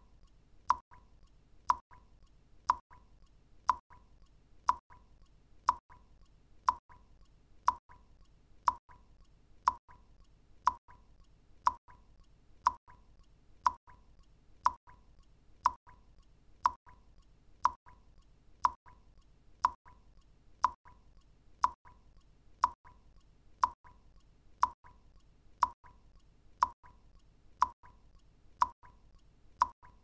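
Water drops falling one at a time into water at a steady rate of about one a second. Each lands as a short plop with a brief pitched ring.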